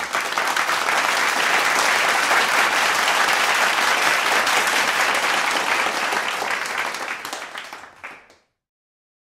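Crowd applauding steadily, then fading out and stopping about eight seconds in.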